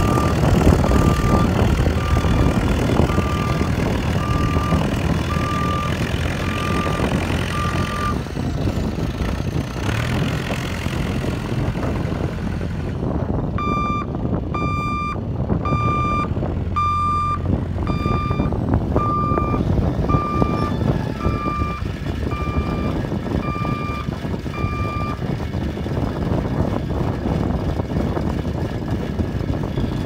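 JCB 1550B backhoe loader's diesel engine running while the machine manoeuvres, its reverse alarm beeping steadily about once a second. The beeping stops about 8 seconds in, starts again after about 13 seconds and stops again after about 25 seconds while the engine keeps running.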